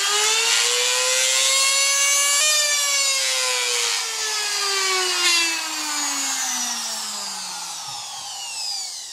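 Budget brushed-motor trim router running with a loud whine that climbs in pitch for about two and a half seconds as its speed is turned up from lowest to maximum, then falls steadily as the motor slows.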